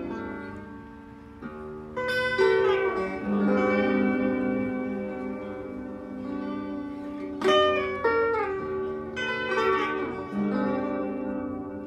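Instrumental background music: held notes with a melody that changes pitch, and several sharp new notes struck through it.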